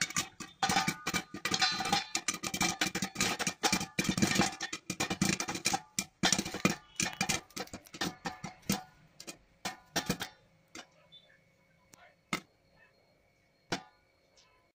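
Popcorn kernels popping inside a lidded steel pan, a dense, irregular crackle of pops that slows to a few scattered pops near the end as the batch finishes popping.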